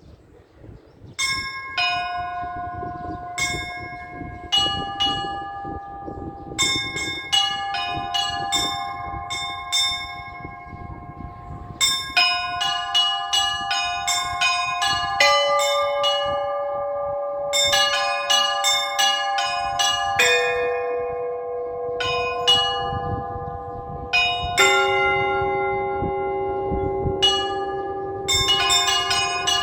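Russian Orthodox church bells rung by hand in a festive feast-day peal. Small, high bells are struck in quick rhythmic patterns from about a second in. Larger, lower-pitched bells join one after another, about halfway through and again later, and each rings on under the chiming of the small bells.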